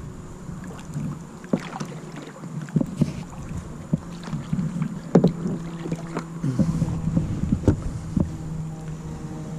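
Handling noise on a Galaxy Cruz kayak: irregular knocks and taps against the hull, over a low steady hum.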